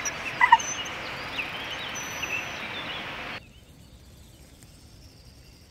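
Open-air pondside ambience: a steady hiss with small birds chirping, and two short, loud pitched notes about half a second in. About three and a half seconds in the sound drops abruptly to a much quieter background with faint birdsong.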